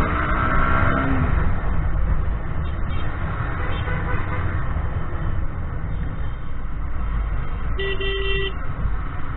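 Wind and motorcycle engine rumble picked up by a helmet-mounted action camera while riding in traffic. A brief pitched tone falls slightly in the first second, and a vehicle horn honks briefly about eight seconds in.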